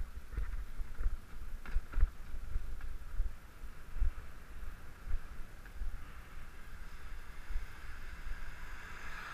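Wind buffeting the microphone of a camera on a moving bicycle, with knocks as the mount jolts over bumps in the road, over a steady whine that grows louder near the end.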